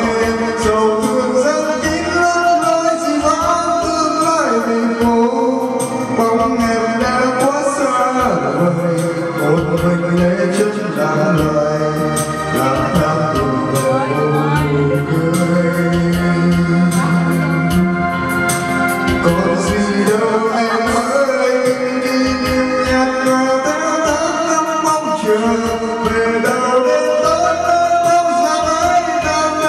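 A man singing into a karaoke microphone over a music backing track, his voice amplified through the room's sound system.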